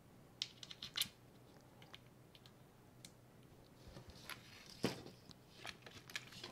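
Faint clicks and small knocks of a 3D printer kit's motor mount, screws and frame panel being handled and fitted together. There is a quick run of light clicks in the first second, then a rustling clatter with one sharper knock a little past halfway.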